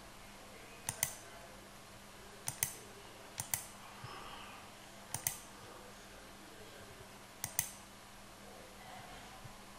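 Computer mouse clicking five times, one to two seconds apart. Each click is a quick double snap, the button pressed and then released.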